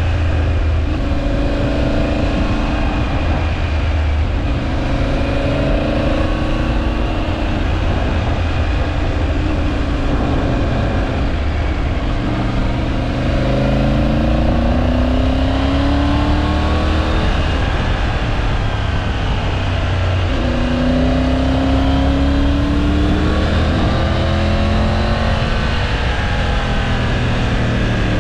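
Triumph Tiger 900 Rally Pro's three-cylinder engine under way, its note rising and falling with the throttle and climbing in pitch several times as the bike accelerates, over a steady low rumble.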